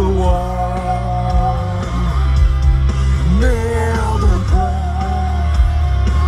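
Loud rock music with a singing voice holding long notes over a heavy bass.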